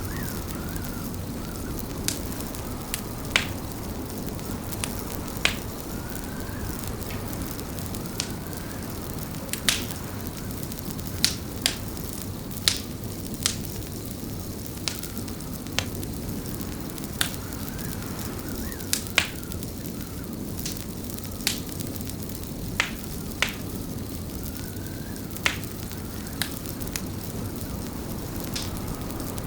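Fireplace fire crackling, with irregular sharp pops about once or twice a second over a steady low rush of wind.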